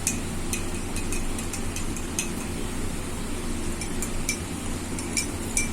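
Metal spoon stirring honey into cups of kadha, clinking lightly and irregularly against the cups a few times a second, over a steady low hum.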